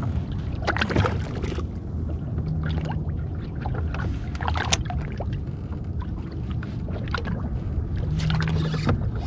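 Water lapping and slapping against the hull of a small drifting skiff, with scattered small clicks and knocks over a low steady rumble.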